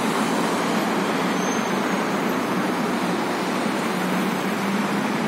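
Steady city street traffic noise from cars on a multi-lane road, an even rush with a faint low hum underneath.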